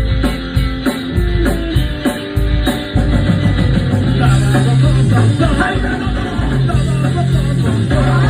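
A rock band playing live: guitar over regular drum hits, then the full band comes in louder about three seconds in, with a held bass line.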